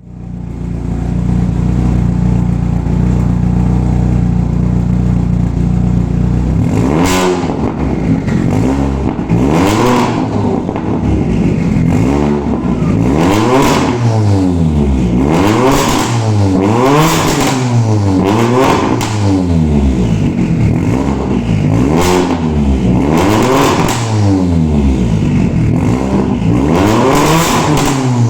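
Volkswagen Golf Mk6 R's turbocharged four-cylinder engine idling steadily for about seven seconds, then revved again and again in quick blips through its exhaust, the pitch rising and falling about every one and a half to two seconds.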